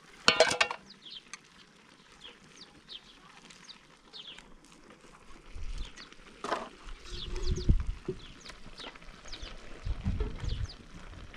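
Small birds chirping again and again throughout, with a short, loud pulsing bleat just after the start, typical of a goat. Dull low thumps come around the middle and again near the end.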